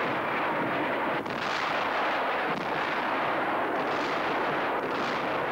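A continuous, steady rumble of explosions and gunfire from a battle scene: an air strike hitting enemy positions.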